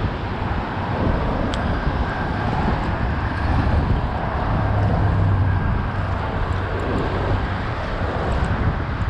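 Steady low rumble of road traffic on the bridge, swelling and easing as vehicles pass, mixed with wind noise on the microphone; a single faint click about a second and a half in.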